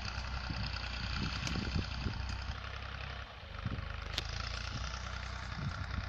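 Fiat 480 tractor's diesel engine running steadily under load as it pulls a plough, a low drone that dips briefly about halfway through.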